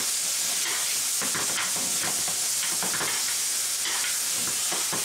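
Tomato sauce with peppers and onions sizzling in a hot frying pan, as metal tongs stir and scrape through it with scattered clicks against the pan.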